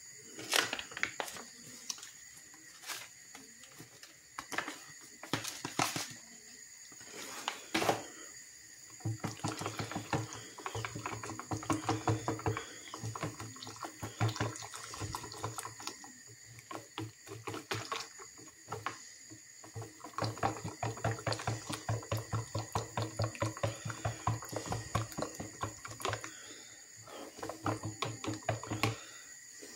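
Sauce-mix powder being stirred into water in a plastic measuring jug: a utensil scraping and knocking rhythmically against the plastic, about two strokes a second, from about nine seconds in. Before that, a few scattered knocks and rustles as the paper sachet is handled.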